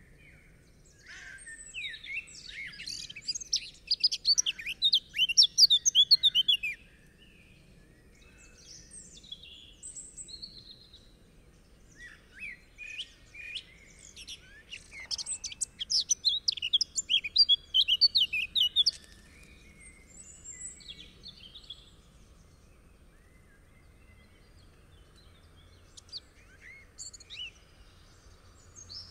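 Songbirds singing: two long runs of rapid, varied twittering notes, starting about a second in and again about twelve seconds in, with scattered shorter calls between them.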